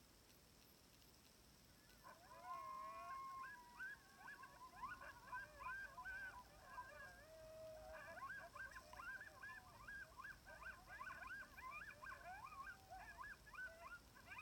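Faint chorus of a pack of timber wolves howling together, starting about two seconds in: many overlapping howls rising and falling in pitch, mixed with shorter yips.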